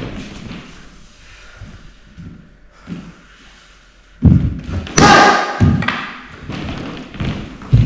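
Thuds of karate strikes and kicks into wooden boards held by partners. A heavy thump comes a little past halfway, then a loud sharp crack with a short ringing tail about a second later, as a board breaks.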